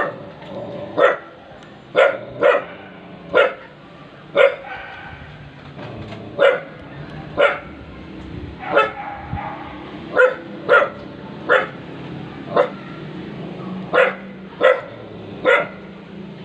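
A dog barking repeatedly, about sixteen sharp single barks, mostly one every half second to a second with a few longer gaps.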